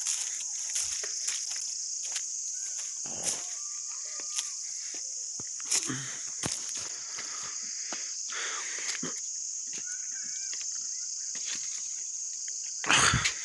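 Steady high-pitched chorus of insects in the woods, with scattered clicks and scuffs of footsteps on a rocky path and a louder bump of noise near the end.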